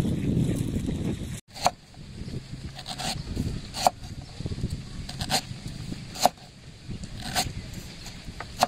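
A cleaver slicing through galangal root onto a wooden chopping board: about seven sharp knocks, roughly one a second. In the first second and a half, the rustle and scrape of lemongrass stalks being cut by hand.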